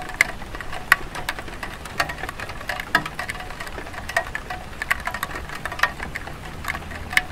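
Light rain on a clay tile roof: many irregular drips and taps, several a second, over a soft steady hiss.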